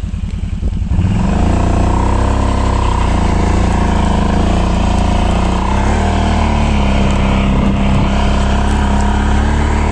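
Kawasaki ATV engine going from a low chugging idle to high revs about a second in, then running hard at steady revs as the quad drives off through the snow.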